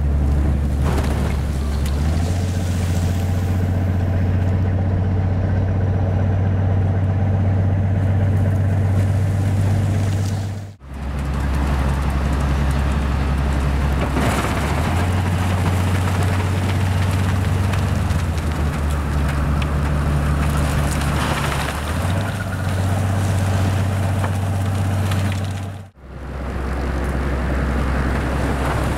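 Railway snow plow train ploughing through deep snow: a steady low engine drone under the rushing hiss of snow being forced aside. The sound drops out sharply for a moment twice, about a third of the way in and near the end.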